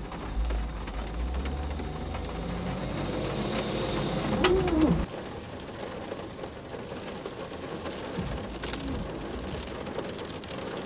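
Garbage truck's diesel engine running as the truck drives close past the car, getting louder and then dropping in pitch as it goes by about five seconds in. After that, steady rain falls on the car, heard from inside the cabin, with a couple of sharp drips or ticks.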